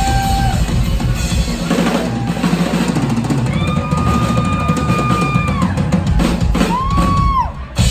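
Live drum kit solo: fast rolls on snare and toms over bass drum hits. A long high held tone sounds over it through the middle, and another tone slides down near the end as the drumming briefly drops off.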